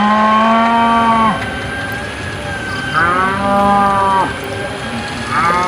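Cattle mooing: three long, even-pitched moos, one at the start, one about three seconds in and one starting near the end.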